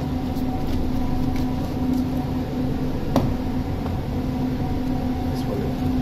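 Steady machinery hum aboard ship, with a few low steady tones, and a single sharp click about three seconds in.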